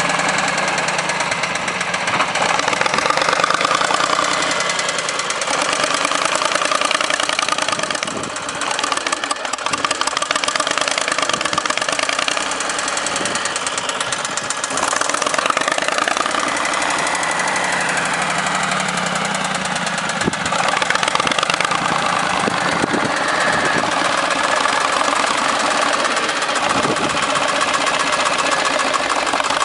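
Backhoe loader's diesel engine running under varying load, its pitch and loudness rising and falling several times as it works.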